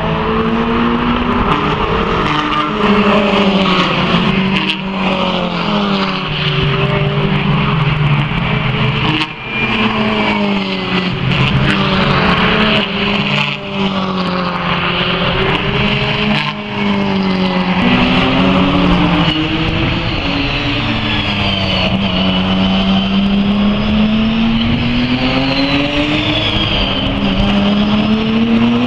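Racing car engines, Renault Clio Cup cars going by at race speed. Each engine note climbs and falls again and again through the gear changes and corners, and at times two cars' notes overlap.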